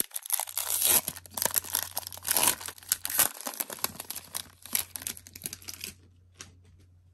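A hockey card pack's wrapper being torn open and crinkled by hand, a dense crackle that stops about six seconds in. A few faint ticks follow near the end.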